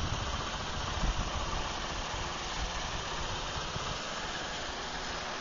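Parkzone T-28 Trojan RC airplane in flight at a distance, its electric motor and propeller a faint steady drone under a rumble of wind on the microphone. The rumble eases off over the last second or so.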